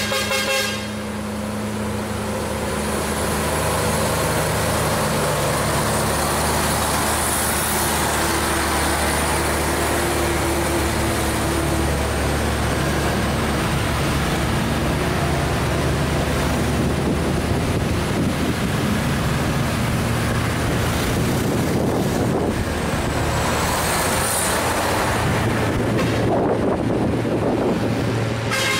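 Diesel truck engines running hard under load on a steep uphill climb, with a steady engine rumble and road noise and a faint high whistle wavering above it.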